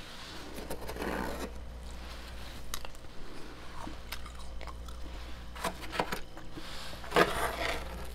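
Fluffy freezer frost crunching in irregular bursts, with the loudest burst near the end.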